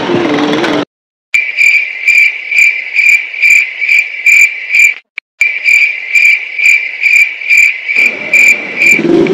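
Cricket chirping sound effect: a steady run of evenly spaced high chirps, about two a second, used as a comic awkward-silence cue. It cuts in after a motorcycle engine stops short, and a low engine hum comes back under the chirps near the end.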